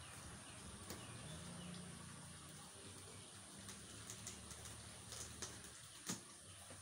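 Faint steady trickle of water from a garden pond, with a few small clicks and scratches from fingers picking at packing tape on a cardboard box, the sharpest near the end.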